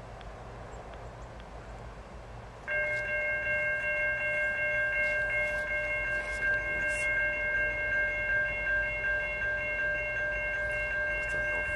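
Railroad crossing bell starting to ring about three seconds in and ringing steadily on, a bright bell-like chord of several high tones: the crossing has activated for an approaching train.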